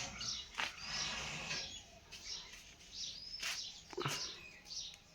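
Small birds chirping with short, scattered twittering calls, with a few sharp knocks among them.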